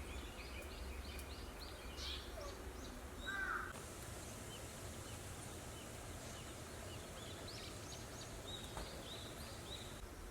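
Birds calling faintly: a quick run of high chirps, a single harsher call about three seconds in, and more chirps near the end, over a steady low hum.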